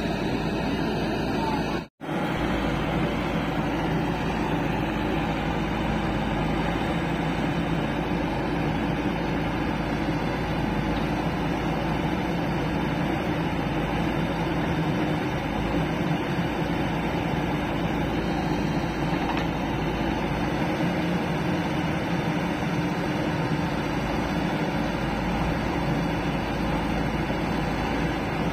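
Diesel engines of a Sonalika tractor and a JCB 3DX backhoe loader running steadily, with a brief dropout about two seconds in.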